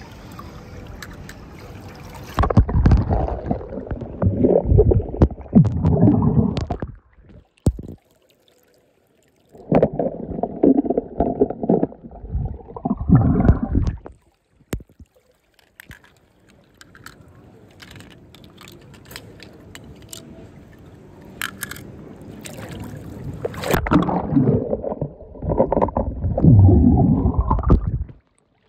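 Water splashing and gurgling as toy cars go into a small pool of water, in three loud bouts of a few seconds each. Each bout ends in a rising gurgle, and the stretches between are quieter.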